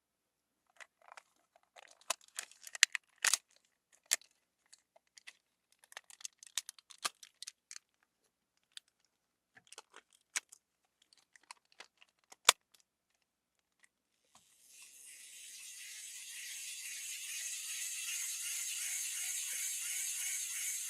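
Hard plastic toy parts clicking and rattling as they are handled: a scattered string of sharp clicks. About two-thirds of the way through, a steady hiss fades in and swells.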